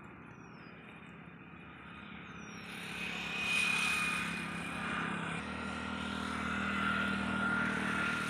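A motor engine running with a steady hum, growing louder about three seconds in.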